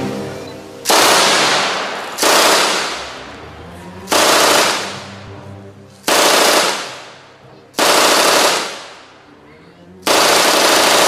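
MG42 machine gun firing short bursts of blanks, six in all about every two seconds, the last one longer. Each burst stops abruptly and its echo trails away over about a second.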